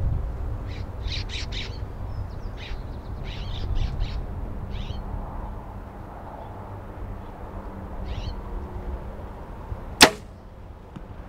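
Hoyt Ventum 34 compound bow, about 80 pounds draw, shot once about ten seconds in: a single sharp snap that is quiet for a bow of that weight. Before it, small birds chirp over steady wind rumble on the microphone.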